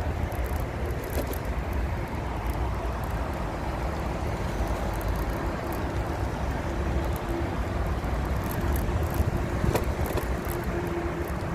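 Steady low rumble of wind and road noise on the microphone while riding an e-bike, with a faint steady hum through the second half and a single click near the end.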